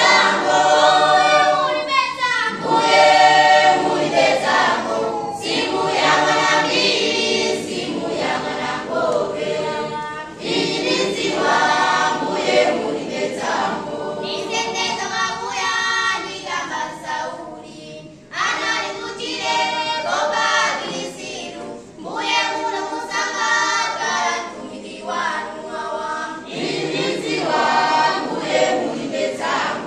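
A choir of young people singing together unaccompanied, in sung phrases with short breaths between them.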